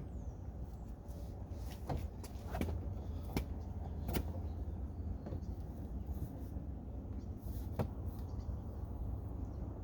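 Plastic door trim panel being worked onto a pickup's door and into its slots: a handful of separate sharp clicks and knocks, over a steady low rumble.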